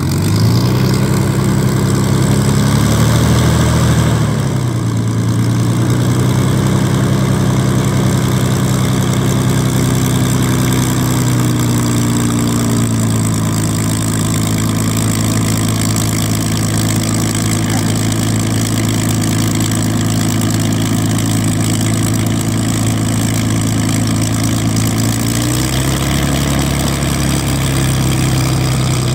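Supermarine Spitfire's Rolls-Royce Merlin V12 engine running at low power as the aircraft taxis, its four-bladed propeller turning. The engine note is a little louder and shifts in pitch in the first few seconds, then holds steady, and picks up slightly a few seconds before the end.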